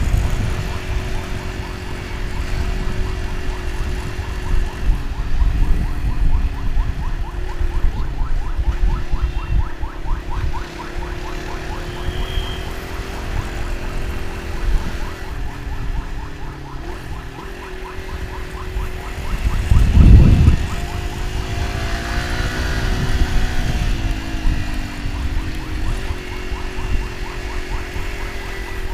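Motorcycle engine running on the move, its pitch drifting up and down as the rider speeds up and slows, under heavy wind rumble on the microphone with a loud gust about twenty seconds in.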